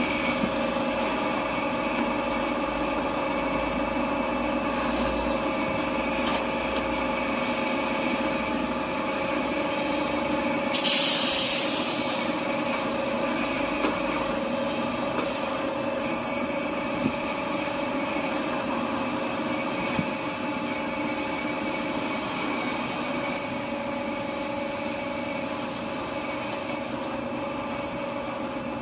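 Semi-automatic Z-fold hand towel paper band saw cutting machine running with a steady hum of several tones. About eleven seconds in comes a loud hiss lasting about a second and a half, followed later by a few light clicks.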